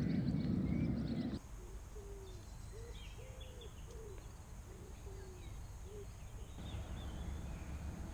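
A pigeon cooing, a series of soft low coos, over faint small-bird chirps. A low rumble comes first and cuts off suddenly about a second and a half in.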